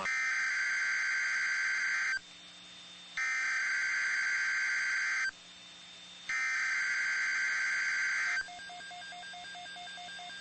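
NOAA Weather Radio's Emergency Alert System SAME header: three bursts of buzzy digital data tones, each about two seconds long with about a second between them, encoding the tornado watch alert. After the third burst, fainter evenly pulsing beeps go on.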